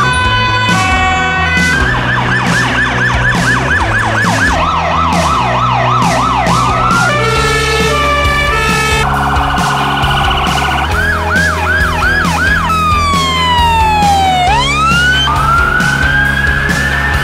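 A quick succession of emergency vehicle sirens changing every couple of seconds: a two-tone hi-lo, a fast yelp of about five sweeps a second, a slower yelp, then long falling and rising wails. Background music with a steady bass beat runs underneath.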